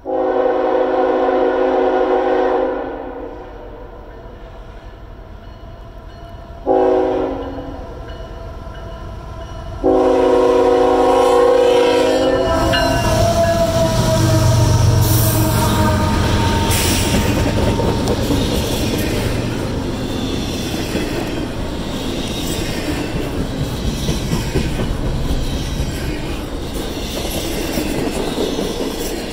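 CSX freight train's diesel locomotive sounding its multi-chime horn for a grade crossing: a long blast, a short one about seven seconds in, and another long one about ten seconds in. The locomotive's engine then passes close by, loudest a few seconds after the last blast, followed by the steady rumble and clickety-clack of double-stack intermodal cars rolling past.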